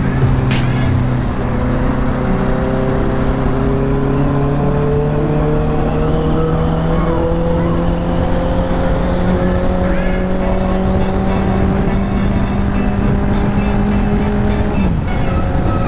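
Honda CBR650F's inline-four engine pulling under way, its pitch climbing slowly and steadily for most of the time, then dropping abruptly near the end. Wind noise rushes over the microphone throughout.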